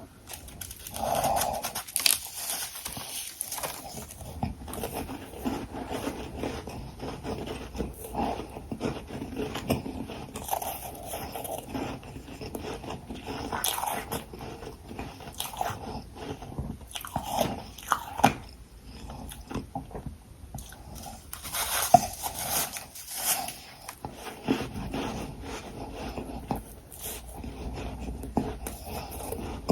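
A person biting and chewing hard ice, dense refrozen frost and crushed ice chunks, in repeated irregular crunches. The loudest bites come about two seconds in and again about twenty-two seconds in.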